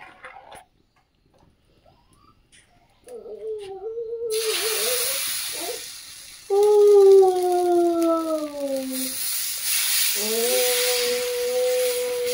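Rice-and-cucumber batter sizzling on a hot dosa griddle, starting suddenly about four seconds in and holding steady. Over the sizzle there is a long whining cry that falls in pitch, then a long steady pitched whine near the end.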